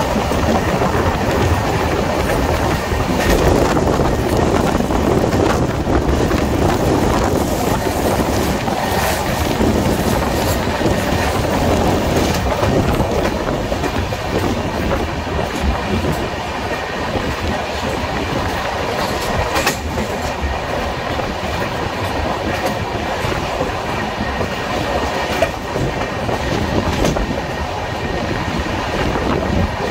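Shatabdi Express passenger train running at speed, heard from beside the coach: a steady rushing rumble of wheels on the rails with a clickety-clack of the wheels over the track.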